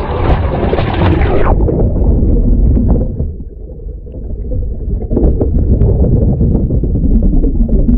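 Water rushing and splashing over a vehicle's hood-mounted camera as it drives into water. About a second and a half in, the hiss cuts off abruptly as the camera goes under, leaving a dense, muffled, low underwater rumble.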